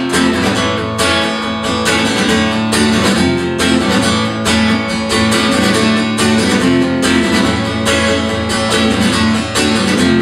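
Acoustic guitar strummed in a steady rhythm, the instrumental intro of a song before the vocals come in.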